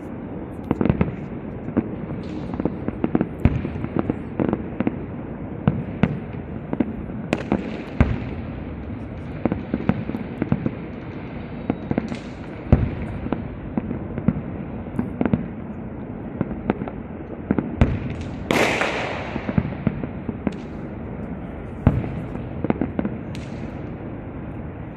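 Fireworks display: aerial shells bursting in an irregular series of sharp bangs, several a few seconds. About eighteen seconds in comes one louder, longer burst that fades away over a second.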